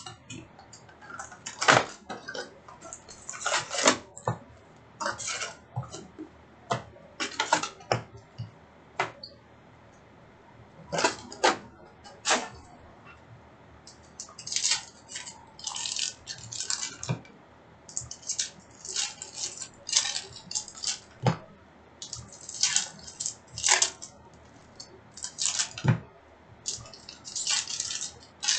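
Hockey card boxes and packs being opened and the cards handled: irregular crinkling and rustling of wrappers and light clicks, in short bursts with brief pauses between.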